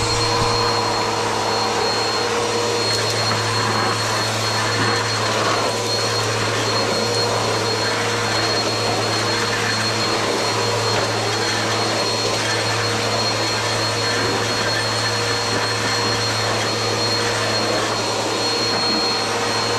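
Bissell PowerForce upright vacuum cleaner running steadily, a low motor hum and a thin high whine over the rush of air drawn through the hose. It is being run after its clog was cleared, to test the suction.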